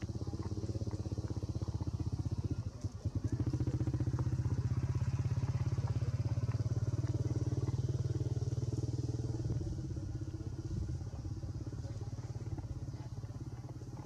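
A small engine running steadily with an even low pulse. It dips briefly about three seconds in, runs louder for several seconds, then eases off.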